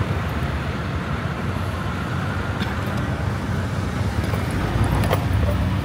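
City street traffic, cars and motorbikes passing with a steady rumble. A couple of brief sharp clicks come about two and a half and five seconds in.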